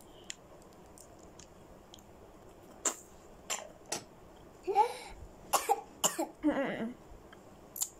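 Three sharp clicks about three seconds in, then a few short coughs and throat-clearing sounds.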